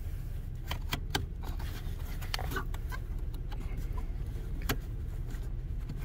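Scattered light clicks and taps of hands working a plastic brake light switch into its bracket under a car's dashboard, over a steady low hum.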